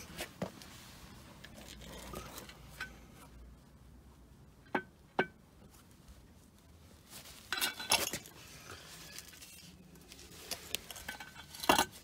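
Toyota FJ Cruiser lower control arm ball joint rocked by hand, giving sharp metallic clicks: two about half a second apart near the middle, then quick clusters, the loudest near the end. This is the ball joint's abnormal noise; its dust boot is torn.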